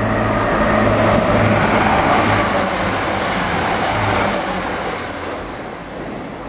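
Grand Central diesel passenger train passing at speed: a low engine drone and the rush of wheels on the rails, with a high whine above. The drone stops after about four seconds and the whole sound fades as the train moves away.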